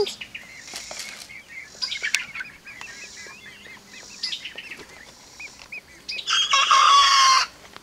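Chickens chirping and clucking softly, then a rooster crows once near the end, about a second and a half long and loud.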